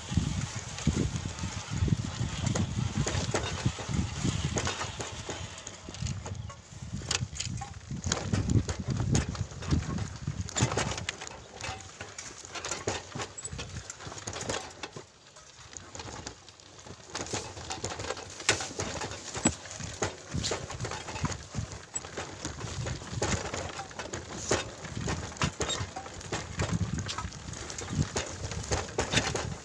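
Motorcycle rumbling unevenly as it bumps down a narrow, rough, overgrown dirt footpath, with repeated knocks and jolts from the uneven ground and vegetation.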